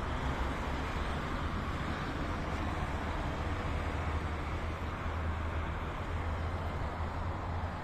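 Steady low rumble with a hiss of outdoor background noise, with no distinct events.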